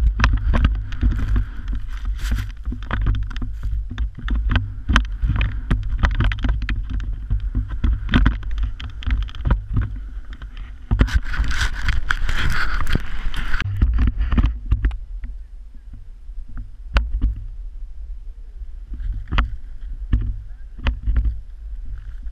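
Wind rumbling on the helmet-camera microphone as a rider slides through deep powder snow, with the hiss of snow spraying and many sharp knocks of snow hitting the camera. The hiss swells for a couple of seconds past the middle, then the whole sound eases off.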